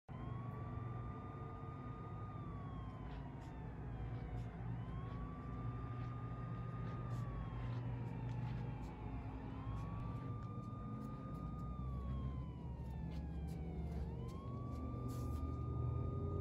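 Emergency vehicle siren in a slow wail, rising, holding, then falling, with each cycle about four and a half seconds long and four rises in all, over a low steady rumble.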